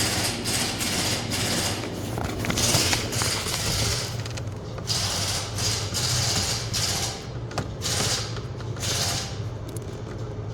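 Irregular rustling, scraping and fiddling noises as a cotter pin is worked into the back of a blower motor wiring connector under a car's dashboard, over a steady low hum.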